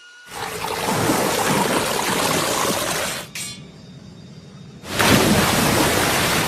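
Cartoon sound effect of rushing, splashing water: a loud gush that starts just after the beginning and stops at about three seconds, then a second gush from about five seconds on.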